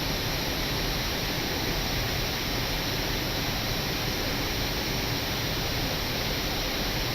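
Steady rushing noise of air flowing past the Airbus A319 in flight, heard on the flight deck.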